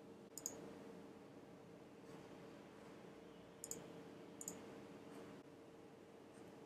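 Computer mouse button clicking: one sharp click about half a second in, then two more near four seconds, over a faint steady electrical hum.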